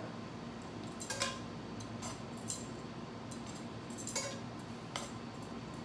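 Kitchen tongs clinking against a nonstick frying pan as cooked shrimp are picked out one at a time: several light, separate clicks over a steady low hiss.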